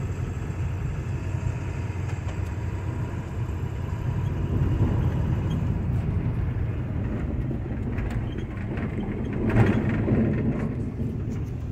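Ford Econoline's 7.3 L Power Stroke turbo-diesel V8 running under load as the van climbs a hill, heard from inside the cab with road noise. The steady low rumble swells a little about halfway through and again near the end.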